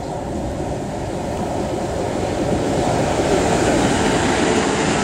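South West Trains Class 450 Desiro electric multiple unit running into the platform, its wheels on the rails and its traction equipment getting steadily louder as it draws alongside.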